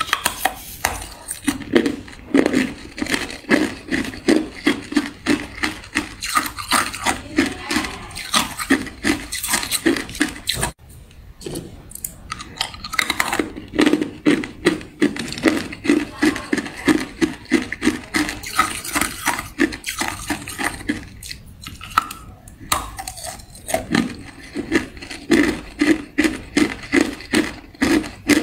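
Hard clear ice cubes being bitten and chewed: rapid crunching and cracking, a few crunches a second in long runs, with a short break just before the middle.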